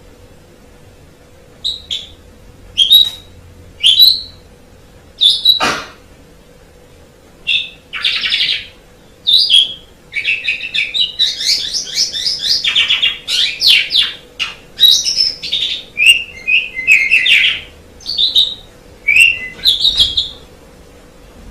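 Asian pied starling (jalak suren) singing: a few short, sharp separate notes, then from about a third of the way in a long run of varied chattering and rattling phrases that stops just before the end. A faint steady hum underneath.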